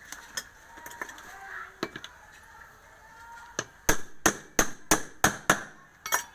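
Hammer tapping metal: a few light clicks, then six sharp strikes in quick succession, about three a second, as a bearing is driven into place on an electric wood planer.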